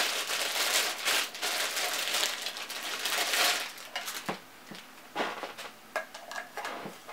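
Clear plastic bag crinkling as a sewing machine foot pedal is unwrapped. The rustling is dense for about the first three and a half seconds, then thins to a few scattered rustles and light handling clicks.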